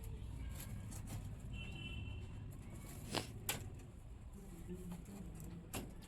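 Faint clicks and knocks of hard objects over a low background rumble: two sharp taps about three seconds in and another near the end.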